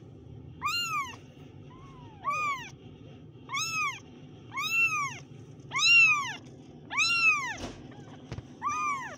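Very young kittens mewing: about seven short, high mews at roughly one a second, each rising then falling in pitch, two of them overlapping about two seconds in.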